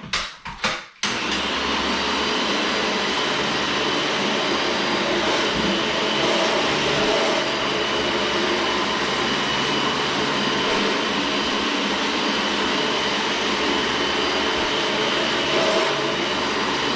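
Dyson DC18 Slim upright vacuum cleaner switched on after a few clicks about a second in, then running steadily with a high motor whine.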